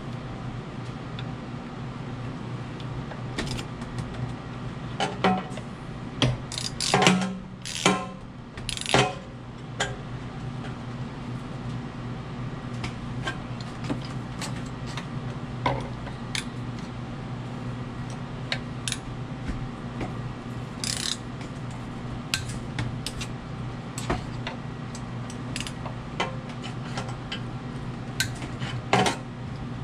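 Ratchet wrench with a socket extension clicking and metal tools clinking while the auger faceplate bolts are worked. A louder run of clinks and clatter comes about a quarter of the way in. A steady low hum sits underneath.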